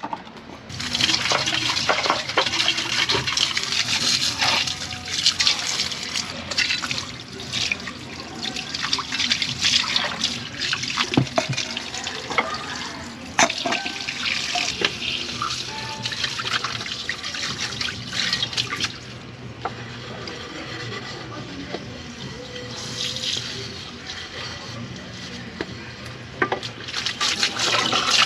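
Water running from a garden hose while dishes are rinsed under it, with scattered clinks of glasses and mugs.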